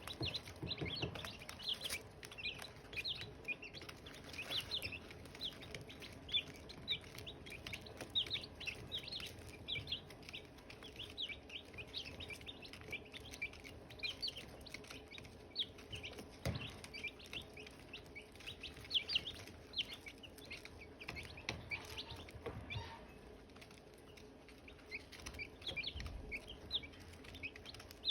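Silkie chicks peeping nonstop: many short, high-pitched chirps overlapping one another.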